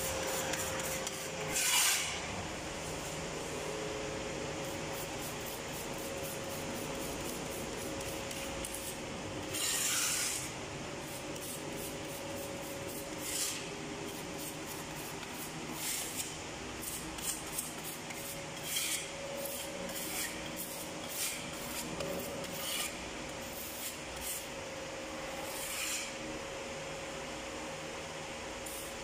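Scraping and rubbing from floor-tile laying, in separate strokes every few seconds, over a steady hum.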